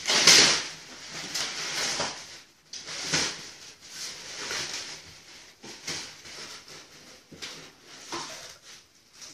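Packing material being handled and pulled out of a cardboard carton: irregular rustling and crinkling of plastic wrap and cardboard in repeated bursts, loudest just after the start.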